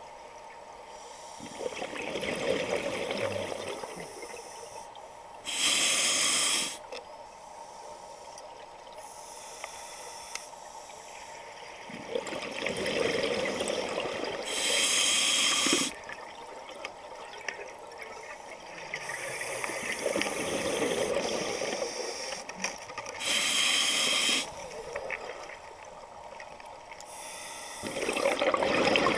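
Scuba diver breathing through an open-circuit regulator underwater: three short, sharp hisses of inhalation through the demand valve, roughly nine seconds apart, with longer stretches of bubbling exhalation between them.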